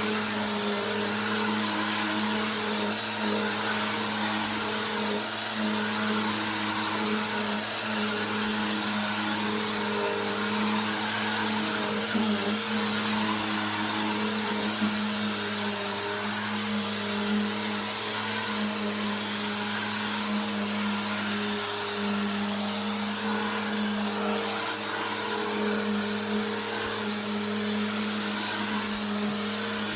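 Bissell PowerForce Helix 2191 bagless upright vacuum cleaner running steadily, its motor hum wavering slightly in pitch and strength. A couple of brief light knocks come near the middle.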